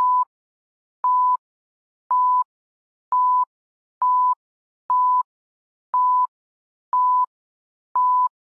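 Film-leader countdown beeps: a short, steady, high-pitched beep about once a second, nine in all, with silence between.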